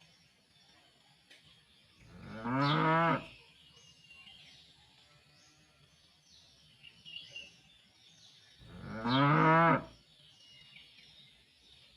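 Cattle mooing: two single moos, each lasting about a second and a half and about six seconds apart.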